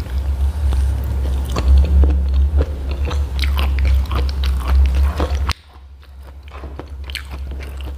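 Close-miked chewing and biting of food, with wet mouth clicks and some crunches. A steady low hum underneath cuts out suddenly about five and a half seconds in, and the chewing goes on more faintly after that.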